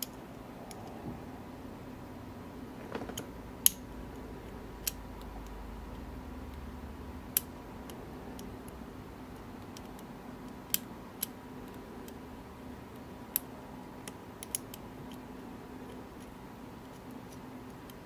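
Scattered small metallic clicks and ticks, spaced irregularly a second or more apart, of a hook pick and tension wrench working the pins inside an Illinois Duo padlock's cylinder.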